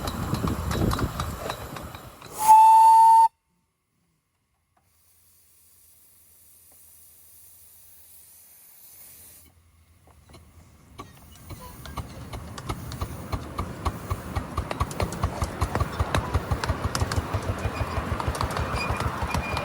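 Miniature steam locomotive giving one short, steady whistle blast, loud and about a second long, about two and a half seconds in. The sound then cuts off abruptly. After a faint hiss, the locomotive is heard running with a fast, regular beat that grows louder.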